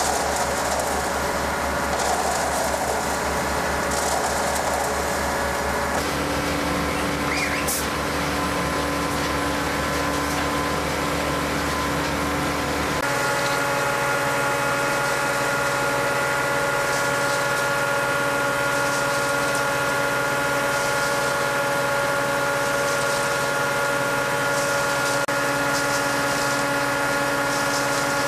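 Concrete batch plant machinery and a truck mixer running steadily: a low engine-like hum with steady whining tones over a hiss. The mix of hum and tones changes abruptly twice, about six and thirteen seconds in.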